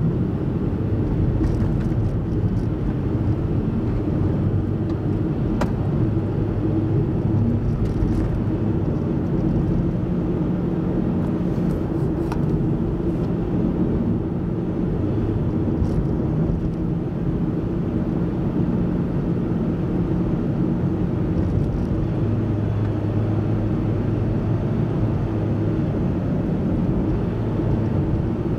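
Car driving at steady speed: a continuous low drone of engine and tyre noise whose pitch shifts slightly, with a few faint ticks.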